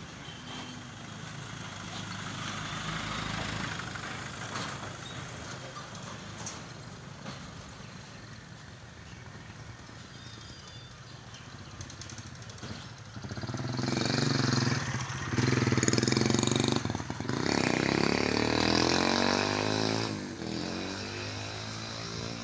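A truck engine running, growing much louder as it drives close past a little after the middle, with its pitch sweeping as it goes by, then easing off near the end.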